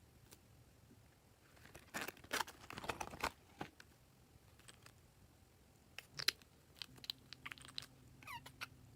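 Slime being squeezed and stretched by hand, giving sticky clicks, crackles and pops in two spells, about two seconds in and again from about six seconds.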